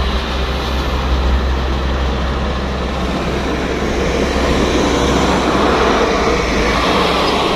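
Road traffic with a heavy truck passing close: a steady deep engine rumble over tyre and road noise, the rumble easing off near the end.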